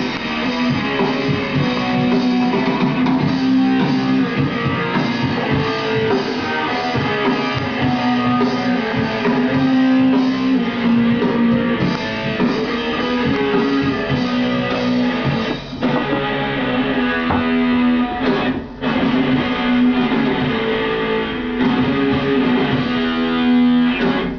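Rock music playing: guitars over a drum kit.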